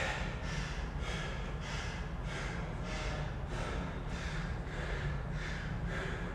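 A person panting hard, about two quick breaths a second, out of breath from intense exercise.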